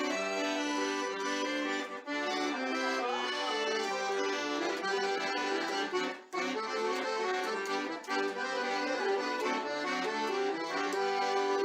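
Accordion playing a tune, melody and chords together, with a brief break about six seconds in.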